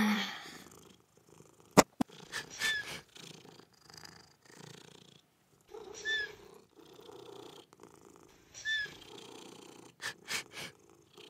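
Cats purring softly in patches, with a few very short, high squeaks and a sharp click about two seconds in.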